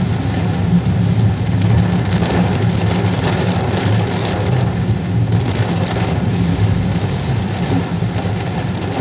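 Steady road noise of a car driving on a wet road in heavy rain, heard inside the cabin: engine and tyres on the wet road, with rain falling on the car. It holds even throughout, with no single loud event.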